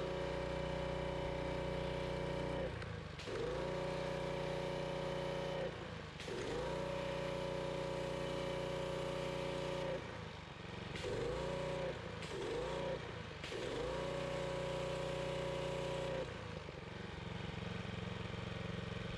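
Pressure washer running with a steady hum while the wand's spray is triggered on and off in short strokes, about six times, each burst bringing in a whine that bends in and out. The spray stops about three seconds before the end, leaving only the machine running.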